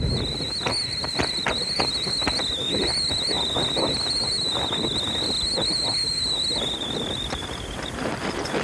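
Boat under way: water slapping against the hull in quick, irregular knocks over wind noise on the microphone. A steady high whine wavers slightly in pitch, sinks a little and dies away about eight seconds in.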